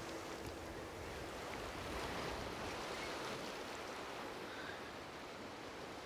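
Sea waves washing on the shore, a steady, even rush of surf.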